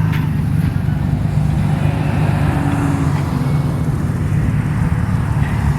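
Car engine and exhaust running steadily with a low-pitched note, holding an even speed with no revving.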